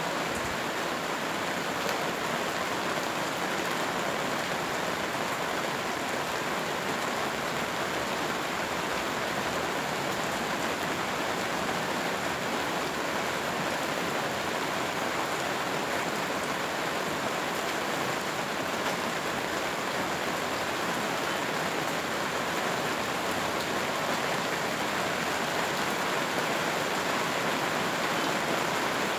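Steady rain falling, an even hiss of water with fine scattered drop impacts, holding one level throughout.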